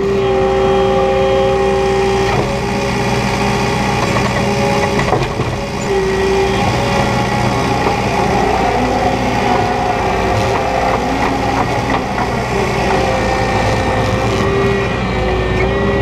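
New Holland 170S skid steer's diesel engine running under load, heard from inside the cab, with a hydraulic whine that fades and comes back, changing pitch, as the loader arms lift the bucket to dump snow and the machine reverses.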